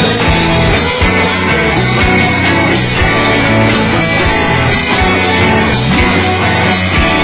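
Stratocaster-style solid-body electric guitar played in a rock jam, over a full backing with a steady drum beat and cymbals.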